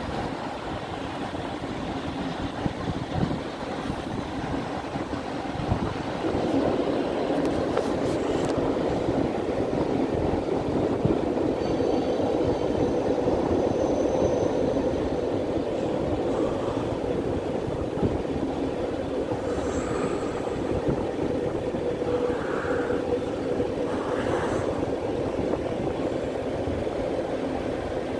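Freight cars rolling across a railway overpass: a steady rumble of steel wheels on rail that grows louder about six seconds in, with a faint steady hum running through it.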